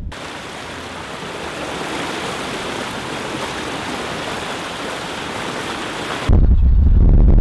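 Chevrolet Silverado pickup's front tyre ploughing through curbside floodwater, a steady rushing spray of water. About six seconds in it cuts off suddenly to a louder low rumble.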